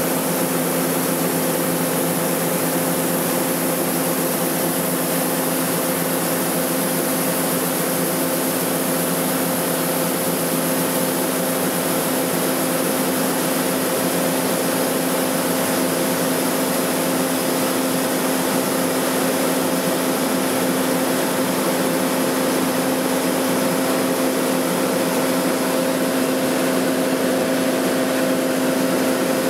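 Farm harvest machinery running steadily: a constant engine drone with a steady hum over an even hiss.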